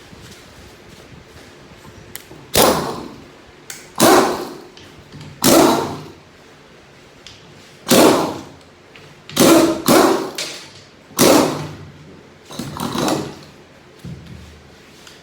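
About eight heavy knocks on the 6HP21 automatic transmission's case as it is worked apart, one to two seconds apart, each dying away quickly.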